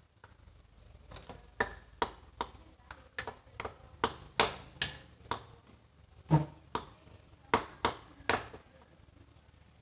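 A run of about fifteen sharp clicks and knocks of hard objects striking each other, irregularly spaced over some seven seconds. One duller, heavier knock comes a little past the middle.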